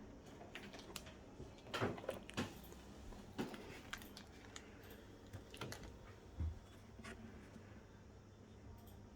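Hands handling the parts and packaging of an unboxed Fluval 407 canister filter: scattered light clicks and knocks, the loudest about two seconds, three and a half seconds and six and a half seconds in.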